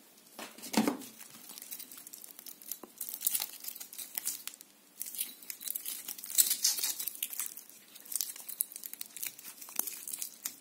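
Metal watch bracelet handled and put on the wrist: links clinking and rattling, rustling handling noise and sharp clicks as the clasp is worked, loudest about a second in and again around the middle.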